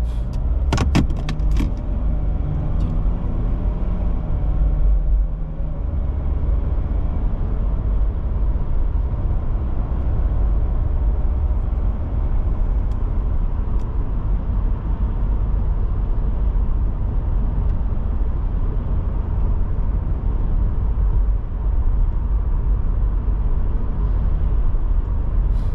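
Steady road and engine noise of a moving car heard from inside the cabin, a low rumble with tyre hiss. A few sharp clicks come about a second in.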